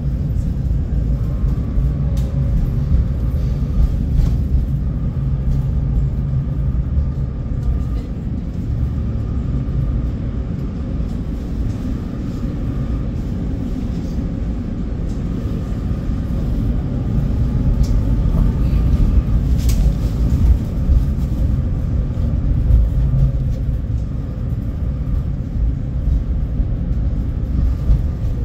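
A tram running on street track, heard from inside: a steady low rumble from the wheels on the rails, with a faint high whine and a few brief clicks and knocks.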